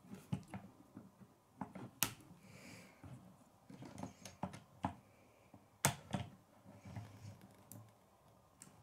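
Plastic K'nex rods and connectors clicking and rattling as they are handled and snapped together, with two sharp snaps about two and six seconds in.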